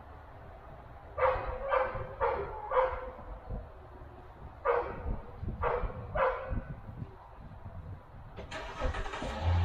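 A dog barking: four quick barks, a pause, then three more. Near the end a broad rushing noise starts.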